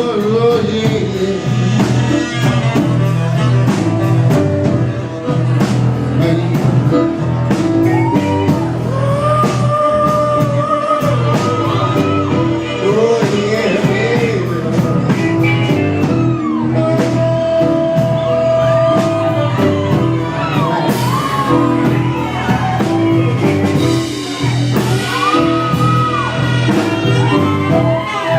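Loud rock music with a singer, over a steady bass and drum beat.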